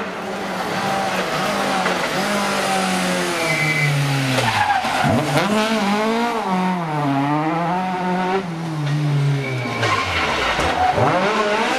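Ford Escort Mk2 rally car engine coming down through the gears as it brakes into a hairpin. Its revs then rise and fall quickly and repeatedly through the turn, and it accelerates away uphill, with a gearchange dip near the end.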